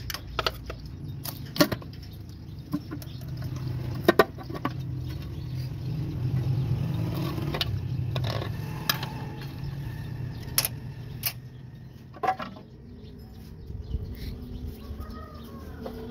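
Wrench and bolts clinking on metal as the rocker cover bolts are undone and the cover is taken off a Massey Ferguson 240's engine for a tappet adjustment. Scattered sharp metallic clicks and clinks over a steady low hum.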